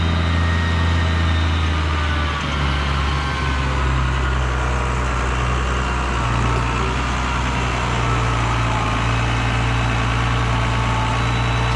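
Tractor engine running steadily while the tractor carries a hay bale on its hay fork, the engine note dropping about two seconds in and shifting up again around six seconds.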